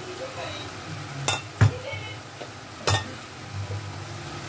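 Kitchen sounds by a pan on the stove: a low steady hum, a sharp click about a second in, a heavier thump just after it, and another sharp click near three seconds.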